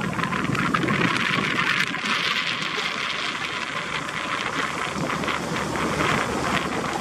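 A vehicle driving along a rough dirt track: a steady rumble with continual crackling from the tyres over stones and twigs.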